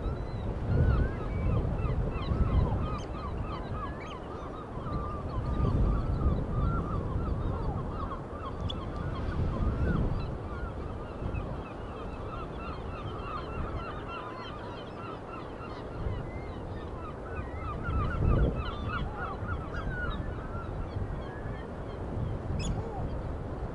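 A flock of birds at the seaside calling constantly, many short honking calls overlapping, over a low rush of wind and surf that swells and fades every few seconds.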